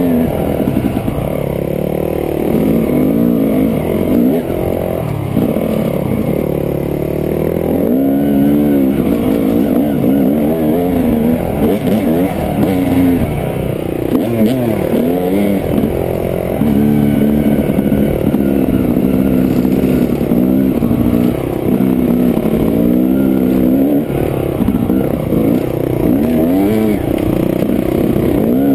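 Dirt bike engine heard from on board the bike, revving up and dropping back over and over as the throttle is opened and closed and gears are changed while riding.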